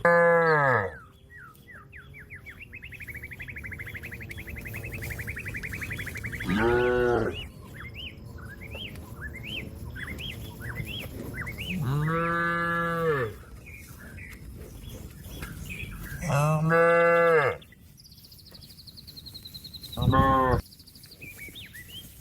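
A cow mooing five times, long arched calls several seconds apart, calling out to another cow that is grazing. Birds chirp quietly between the calls.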